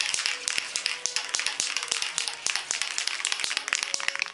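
Aerosol spray paint can being shaken, its mixing ball rattling in quick, irregular clicks over a light hiss.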